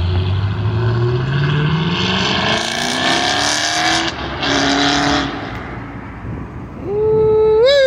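A car engine accelerating hard, its pitch climbing steadily for about four seconds before a break as it shifts. Near the end a sharp rev rises quickly and falls away.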